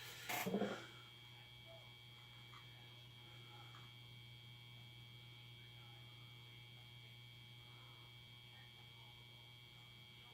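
Quiet, steady electrical hum with a faint high whine over room tone, after a brief louder sound in the first second.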